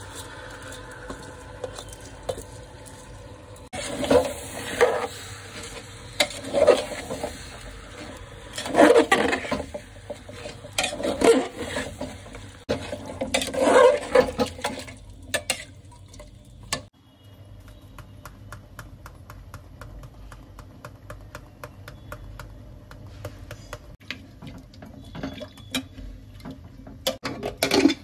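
Raw rice pouring into an aluminium pressure cooker, then a metal ladle stirring and scraping the rice and chicken mix against the pot in a series of loud strokes for about ten seconds. After that comes a fast, light, even ticking.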